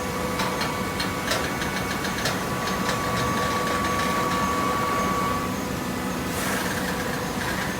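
Horizontal hydraulic cardboard baler running: a steady machine hum with a higher whine that stops about five seconds in. A string of clicks and knocks sounds in the first few seconds, and a short hiss comes about six seconds in.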